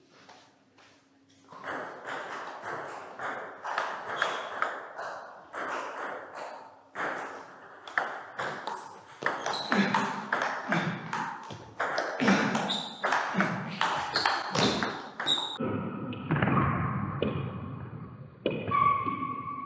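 Table tennis rally: a quick series of sharp clicks as the ball is struck by rackets and bounces on the table, one racket faced with Dr. Neubauer Killer long-pimple rubber. Near the end a few steady tones sound under the clicks.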